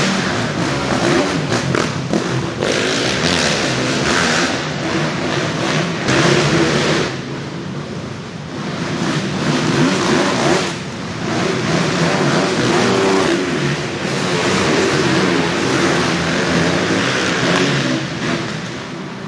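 Motocross dirt bikes running hard on a supercross track. The engine note swells and drops every few seconds as the throttle opens and closes through turns and jumps.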